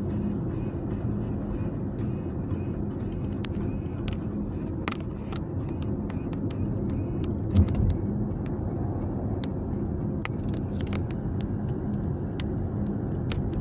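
Climate-control vent actuator behind the dashboard of a 2024 Volvo XC40 Recharge, making a constant buzz with irregular sharp clicks over the drone of the moving car. A low thump comes about halfway through. The sound is the fault the owner is recording: a vent actuator buzzing whatever vent direction is chosen.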